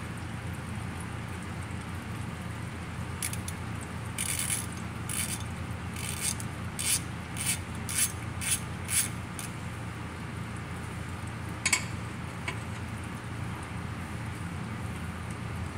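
Hand ratchet wrench clicking in a run of short strokes, about two a second, as it turns a bolt on the exposed automatic transmission valve body of a BMW 750Li, then one or two sharper clicks later on. A steady low hum runs underneath.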